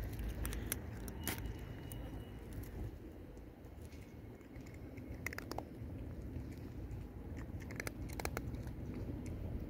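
A cat crunching dry kibble: scattered sharp crunches and clicks, in clusters about one, five and eight seconds in, over a low steady rumble.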